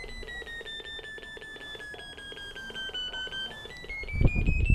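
Handheld terrier locator receiver beeping rapidly, about five beeps a second, the pitch sliding slowly lower and then rising again near the end. The pitch tracks distance to the dog's collar transmitter: lower as the receiver moves away, higher as it comes closer. A burst of low rumbling noise comes in near the end.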